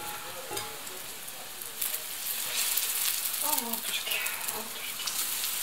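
Semolina pancakes sizzling and crackling in hot oil in a frying pan, with a few small clicks as a knife and fork move them in the pan.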